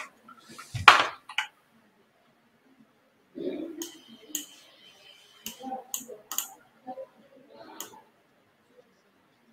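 Handling noises: scattered clicks and knocks with one loud thump about a second in, and a brief thin high tone a few seconds later, among faint low voices.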